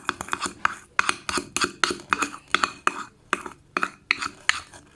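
A teaspoon stirring a thick toothpaste-and-salt slime mixture in a bowl, clicking and scraping against the bowl in quick, irregular strokes, several a second, to work the mixture until it thickens.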